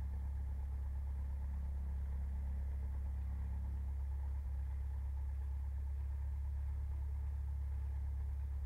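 Cessna 172's piston engine running at low taxi power, heard through the headset intercom as a steady low drone.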